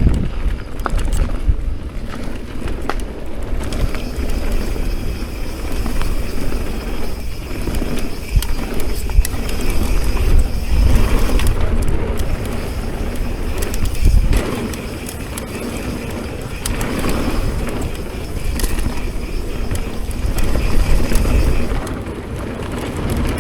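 Mountain bike being ridden on a dirt trail, its tyres rolling and the bike rattling, with scattered clicks and knocks over a steady low rumble of wind buffeting the microphone.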